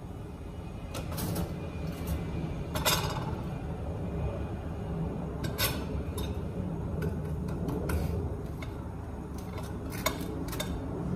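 Kitchen utensils and dishes clinking and clattering at a counter during food preparation, in scattered sharp knocks over a steady low hum.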